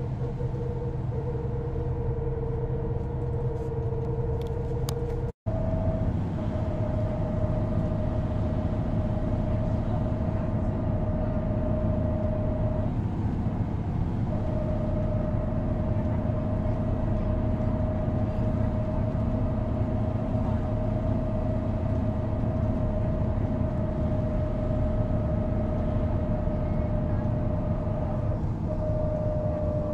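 Mercedes-Benz O405NÜ bus running steadily, a continuous engine drone with a constant whine over it. There is an abrupt cut about five seconds in, after which the whine sits slightly higher and holds steady.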